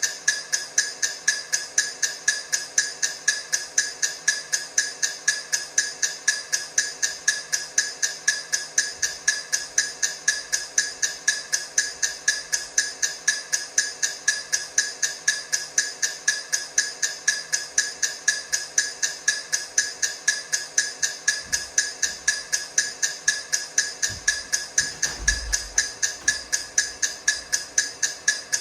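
Clock ticking steadily, about two sharp ticks a second, as the sound of a countdown timer.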